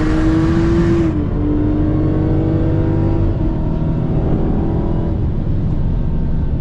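Car engine at full throttle during a drag race, its pitch climbing steadily. The pitch drops suddenly about a second in, then climbs again.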